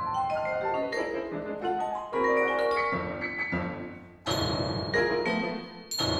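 Grand piano and marimba playing fast runs of separate notes in contemporary chamber music, broken by sudden loud struck chords about four seconds in and again near the end, which ring on.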